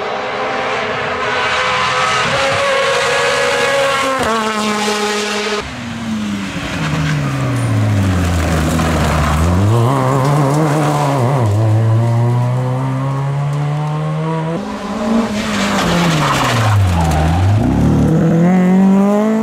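Rally car engines at full throttle on a closed stage, revving hard up through the gears, dropping sharply in pitch as the drivers lift off and brake for corners, then climbing again as the cars accelerate away. The sound switches abruptly twice, from one car to the next.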